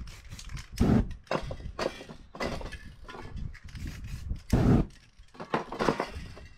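Aerosol spray-paint cans hissing in short, irregular bursts, mixed with knocks and rustles of the cans and board being handled; the loudest bursts come about a second in and again about four and a half seconds in.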